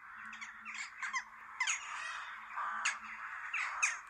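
A flock of corvids calling together, many harsh caws overlapping with a few louder single calls standing out.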